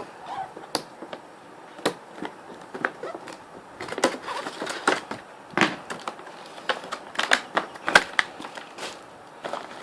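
Packaging being handled while headphones are unboxed: irregular clicks, taps and crinkles of plastic and cardboard, with a few sharper knocks.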